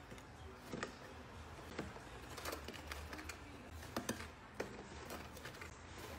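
Faint, scattered taps, knocks and scrapes of a cardboard box being nosed, bitten and pushed around by a small dog.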